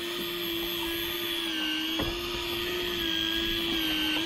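Electric deep-drop fishing reel's motor winding in a hooked red snapper, a steady whine that wavers slightly in pitch as the load on the line changes. A single click about two seconds in.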